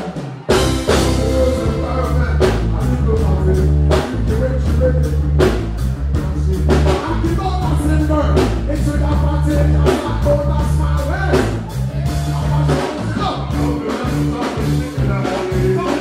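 Live band playing a heavy-bass dancehall beat with regular drum hits and guitar, with a singer's voice over it through the PA. The music drops out for a moment about half a second in, then the beat comes back in.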